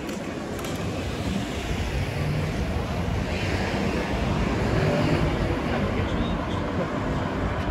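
City street traffic: cars passing on the road beside the sidewalk, a steady rush of engines and tyres that swells about halfway through.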